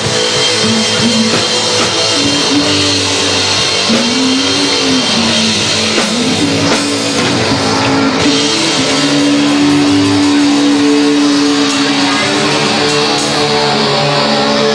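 Student rock band playing live through stage amplifiers: electric guitars and drum kit, with a singer on microphone.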